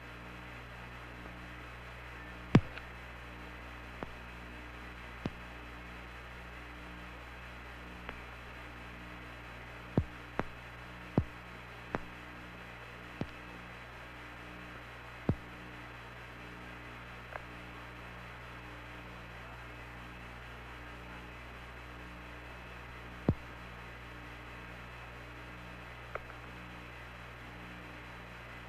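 Steady hum and hiss of an open air-to-ground radio channel, with a faint regular pulsing in the low hum. About a dozen sharp clicks fall at irregular intervals, the loudest about two and a half seconds in.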